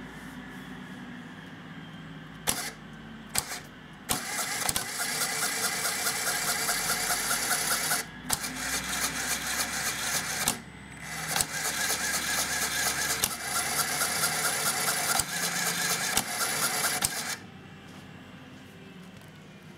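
A LEGO Power Functions electric motor driving plastic Technic gears gives two brief spurts, then runs for several seconds at a time with a rapid, rattling whirr. It stops briefly twice and cuts off sharply near the end.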